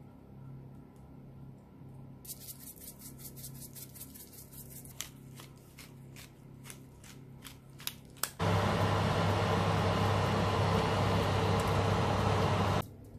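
Pepper grinder being twisted over a tray of bread cubes: a fast run of small rasping clicks, thinning to scattered clicks. About eight seconds in, a loud steady rushing noise with a low hum starts suddenly from the open oven, its fan running, and cuts off abruptly near the end.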